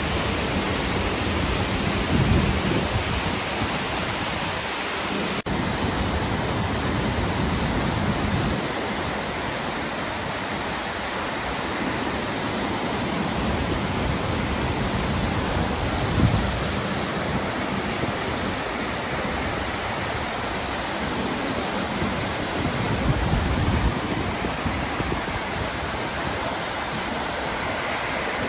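Waterfall and a swollen, muddy river in flood rushing steadily, a constant broad water noise, with a few brief low bumps.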